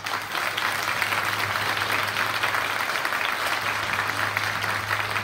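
Audience applauding: dense, steady clapping from a crowd, with a faint low hum underneath.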